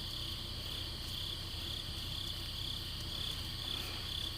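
Crickets chirping in a steady pulsing rhythm, about two and a half pulses a second, over a low steady rumble.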